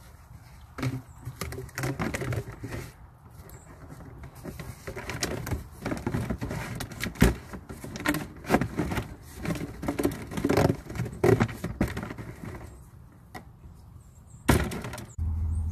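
Corrugated plastic RV sewer hose being squashed and stuffed into a plastic storage tote: irregular rustling, scraping and knocking of the hose against the tote. Near the end a loud rustle, then a low steady hum starts.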